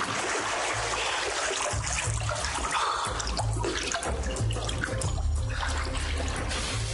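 Rushing, splashing water over dramatic background music with a low pulse about once a second.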